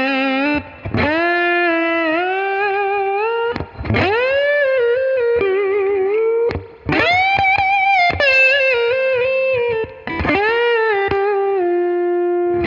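Electric slide guitar playing a single-note melody, notes sliding up into pitch and held with long, even sustain and vibrato, the clean compressed tone of a SlideRIG dual compressor pedal.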